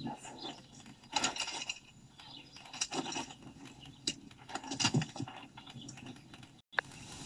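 Film soundtrack of a quiet outdoor scene playing through home speakers: a few short, scattered rustles and clinks over a faint background, with no dialogue. The sound drops out for a split second near the end.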